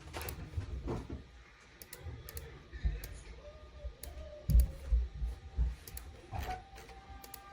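Typing on the EPOMAKER x Aula F99 mechanical keyboard with Graywood V3 switches: irregular key clacks, with a few heavy low thumps about halfway through.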